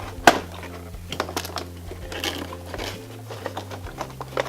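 Cardboard and plastic toy packaging being handled as the playset is pulled out of its box: sharp taps and scrapes, the loudest about a third of a second in, over a quiet background music bed.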